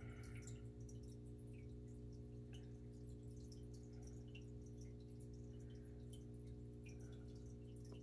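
Quiet room tone carried by a steady low electrical hum with several even overtones, with a few faint small ticks scattered over it.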